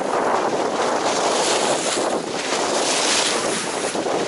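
Choppy water sloshing and splashing against a concrete seawall and a swamped boat, swelling twice, with wind buffeting the microphone.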